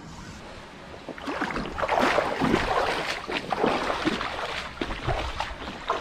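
Water splashing and sloshing close to the microphone in a shallow stream, irregular splashes starting about a second in; a low rush of flowing water builds near the end.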